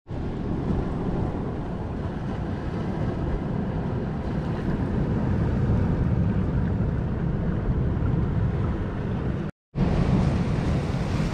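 Rough sea surging against a boulder shore, with wind buffeting the microphone: a steady wash of noise, heaviest in the deep range. It drops out for a moment near the end.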